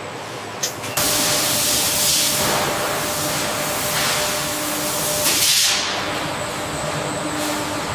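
Factory processing machinery letting out a loud, steady hiss that starts suddenly about a second in, with a steady machine hum beneath it.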